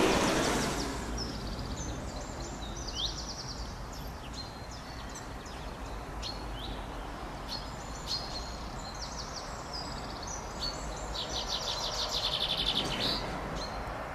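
Songbirds chirping with short calls and, about twelve seconds in, a fast loud trill, over a steady low rushing background. A louder noise fades out during the first second.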